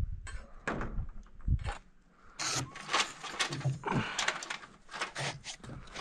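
Irregular scraping, knocking and rustling of boots, gloves and clothing against timber framing lumber as a worker climbs out onto dormer rafters, with a low wind rumble on the microphone in the first second or two.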